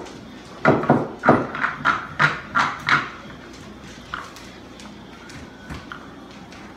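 Pool balls clacking against each other and the wooden rack as they are gathered and packed for a rack of nine-ball. A quick run of sharp clacks fills the first three seconds, followed by a few softer taps.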